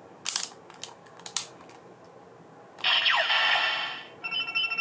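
DX Kamen Rider Gaim Ridewatch toy: a few plastic clicks as its face cover is turned and its button pressed, then its electronic sound effect plays through the toy speaker, a falling swoosh followed by a string of beeping electronic tones.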